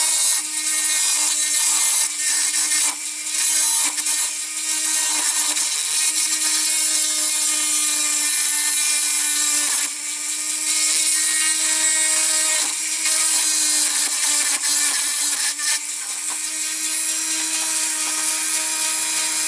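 Dremel rotary tool with a very small bit running steadily, grinding down the end of a diecast toy lorry's metal axle to free the wheel; its whine holds one steady pitch over a loud gritty hiss, dipping briefly a few times as the bit is lifted or bites.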